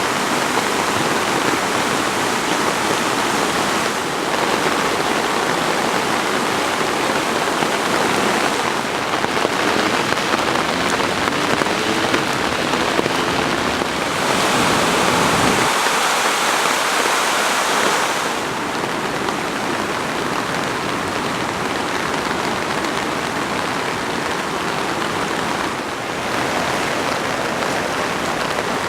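River running high after a typhoon: a steady rushing of water that shifts in level and tone several times.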